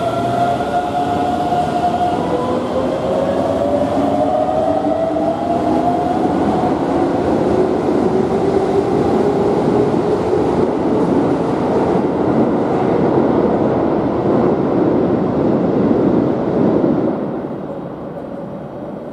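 Keihan 9000-series electric train pulling out and accelerating, its motor inverter whining in tones that rise in pitch as it gathers speed over a steady rumble of wheels. The sound fades quickly near the end as the train leaves.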